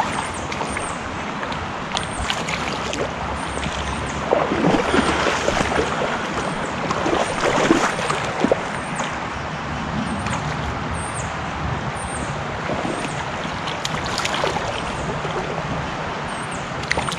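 Creek water running with wind buffeting a head-mounted action camera's microphone. A louder stretch of splashing from about four to eight seconds in, from a hooked trout thrashing at the surface.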